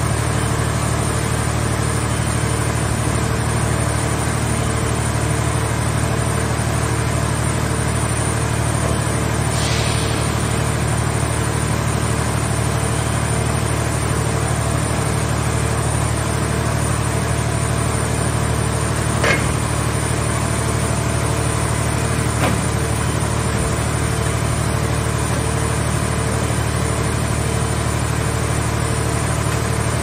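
Portable car baler's hydraulic power unit running steadily, a constant low drone with a steady hum, while its grapple crane works. There is a brief hiss about ten seconds in, and two short knocks about three seconds apart in the second half.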